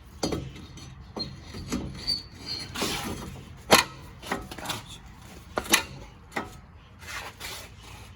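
Metal clinks and knocks as a brake rotor is fitted onto a front wheel hub and handled, with a few sharper knocks, the loudest a little under 4 seconds in and another near 6 seconds.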